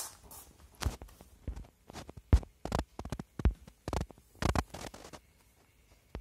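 Clear high-heeled shoes clicking and tapping on a ceramic tile floor, an irregular run of heel and sole taps of varying loudness for about four seconds, with one last tap near the end.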